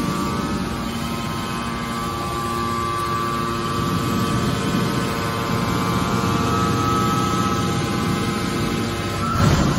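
Hydraulic scrap-metal baler's motor and pump running steadily, a machine hum with a whine over it. Near the end a brief rising tone is followed by a single knock.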